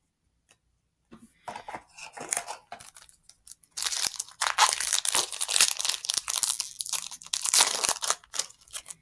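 Foil booster-pack wrapper being torn open and crinkled. It starts as scattered crackles about a second in and turns loud and continuous from about four seconds in until near the end.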